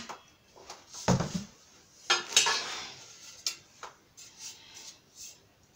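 Metal grill-leg tubes knocking and clanking together as a short leg is hooked into a long leg: a dull knock about a second in, a louder ringing clank about two seconds in, then a few lighter taps.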